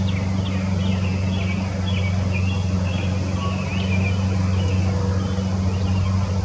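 A steady low motor hum runs throughout, the loudest sound, with songbirds singing rapid, high chirping phrases over it.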